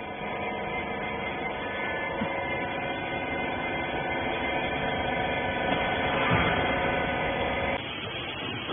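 Hydraulic rag baler's electric motor and pump running with a steady, many-toned hum that drops off sharply near the end.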